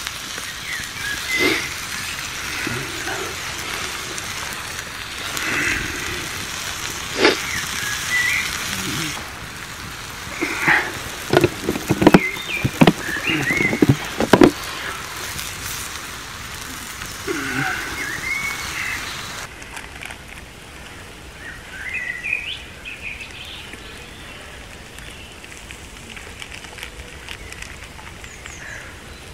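Steak, mushrooms and asparagus sizzling on a slate over a wood fire, with a cluster of sharp knocks and pops in the middle, the loudest sounds here. Birds chirp now and then. The sizzle drops away in the last third, leaving quieter woodland with bird calls.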